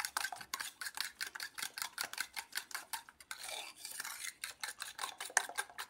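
A metal fork beating eggs and sugar in an enamel bowl: quick, even taps against the bowl, about five or six a second, with a brief softer swish about three and a half seconds in.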